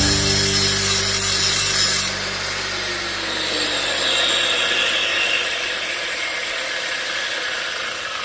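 Restored electric grinder running, switched off about two seconds in, then its motor winding down with a slowly falling whine that fades away.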